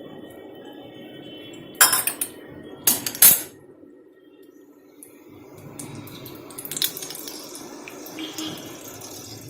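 Metal pots and utensils clanking while hot mustard oil is strained into a bowl: a few sharp, loud clanks about two and three seconds in, then lighter clinks later on.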